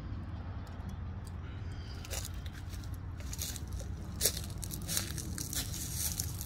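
Dry branches and thorny brush crackling, snapping and scraping as someone pushes through thick undergrowth on foot. The crackles come thick and fast from about two seconds in, over a steady low rumble.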